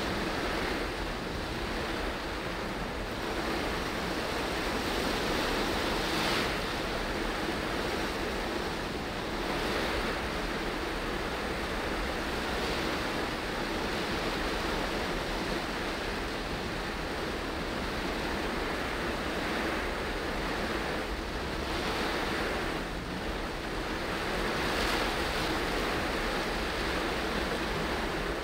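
Heavy rain on a moving car and tyres hissing on the wet road, heard from inside the car: a steady noise that swells slightly every few seconds.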